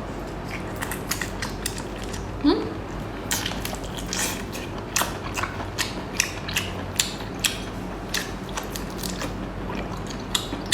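Close-miked eating of seafood: irregular crisp crunches and clicks as it is bitten and chewed, with a short vocal sound about two and a half seconds in.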